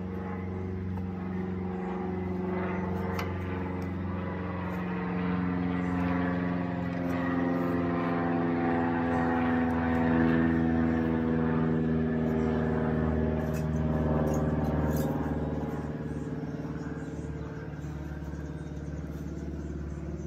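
Engine drone of a motor vehicle running nearby, a steady hum that slowly swells toward the middle and then fades, with a few light clicks over it.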